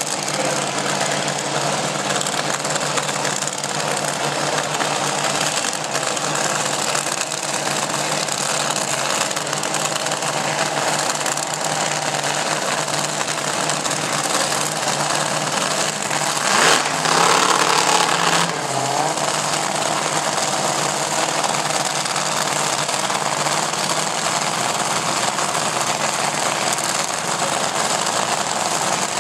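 Drag racing engines idling with a rough, clattering run, steady throughout, with a short louder burst a little past the middle.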